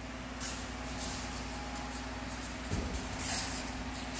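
Sneakers scuffing and stepping on a concrete floor as fencers move, a few short scrapes about half a second in and again after three seconds, over a steady low hum.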